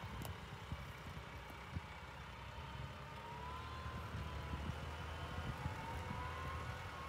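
Tractor engine running with a low, pulsing rumble, and a faint whine that rises in pitch twice.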